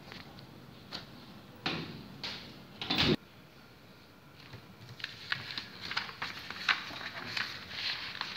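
A few knocks and one louder thump about three seconds in, then a sheet of printer paper rustling and crackling in quick bursts as it is handled and creased into folds on a tabletop.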